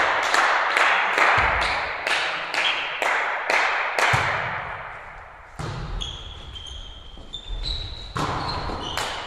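A volleyball bounced over and over on a hardwood gym floor, about two bounces a second, ringing in a large hall. Then come a sharp hit of the serve and a few ball hits in the rally, with short squeaks of sneakers on the floor.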